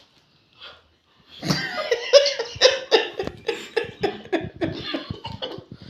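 A person laughing hard in a run of loud, rapid ha-ha bursts, starting about a second and a half in and fading near the end.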